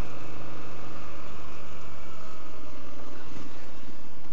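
Triumph Street Scrambler's 900cc liquid-cooled parallel-twin engine running at low speed through its high twin exhaust, with steady wind and road noise over it. The engine's even note breaks up after about two and a half seconds as the throttle changes.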